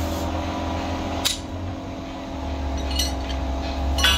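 Three sledgehammer blows on metal, sharp and clanking, the last the loudest with a brief metallic ring, over a steady low hum.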